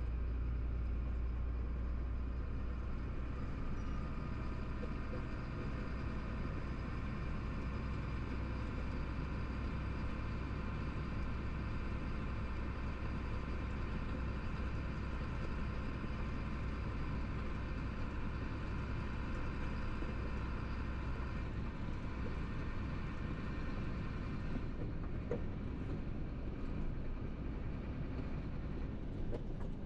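Chenglong 375 tractor truck's diesel engine running steadily along the highway, with tyre and road noise, heard from inside the cab. The low engine drone eases slightly near the end.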